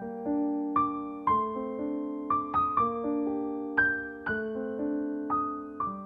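Background piano music: notes struck about twice a second over held lower notes, each note fading after it sounds.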